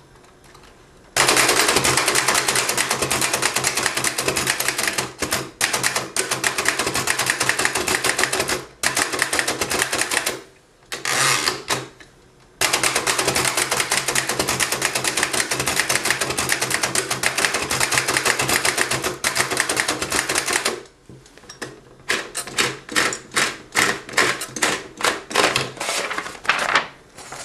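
1892 Empire No. 1 typewriter being typed on fast. Long runs of rapid keystroke clacks, broken by two short pauses, give way to slower, separate strokes near the end.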